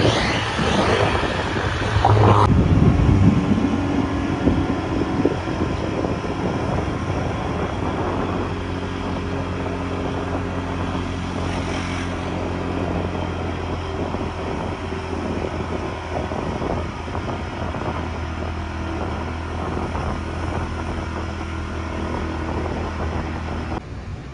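A vehicle engine running steadily with road and wind noise, a low humming drone with several tones. It is louder in the first few seconds, with a rising rev, and cuts off just before the end.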